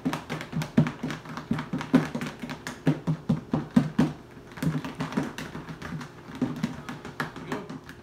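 Chicken wings in sauce knocking about inside a lidded plastic container shaken hard by hand, about four knocks a second, stopping near the end.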